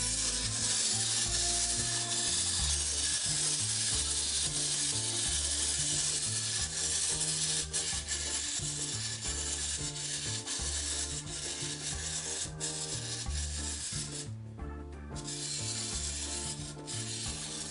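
Small plastic wind-up toy's clockwork motor whirring as it walks, its plastic feet rubbing and clattering on the tabletop with a steady rasping sound. It stops briefly about fourteen seconds in, then carries on more faintly.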